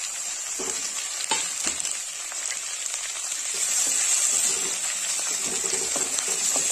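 Onions, green chillies and chopped tomatoes sizzling in hot oil in an iron kadhai, stirred and scraped with a wooden spatula. The sizzle grows louder about halfway through.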